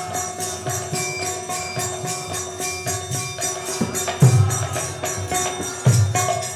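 Kirtan accompaniment between sung lines: steady held tones under a quick, even rhythm of small hand cymbals, with a few deep drum strokes, the loudest about four seconds in.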